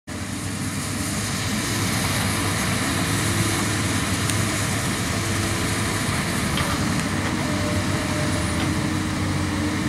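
Komatsu PC200 hydraulic excavator's diesel engine running steadily under working load while it digs and moves soil.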